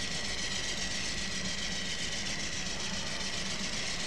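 Locomotive engine running steadily: an even drone with a thin, constant high tone over it.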